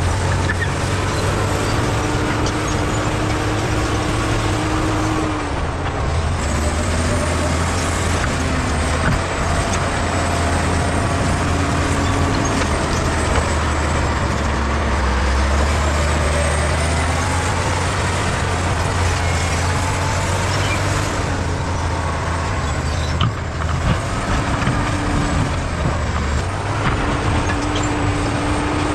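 Bulldozer's diesel engine running steadily under load, its pitch shifting up and down as it works, with a high whine that rises and falls.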